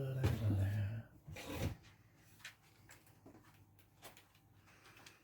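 A man humming a couple of low notes for about the first second, then a short rustle and scattered faint clicks and taps of small objects being handled.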